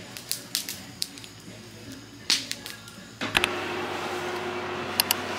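Wood bonfire crackling with irregular sharp pops. About three seconds in it gives way to the steady hum of a small room.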